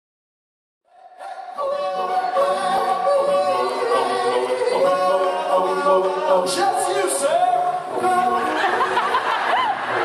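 About a second of silence, then an a cappella vocal group singing in harmony, several voices without instruments.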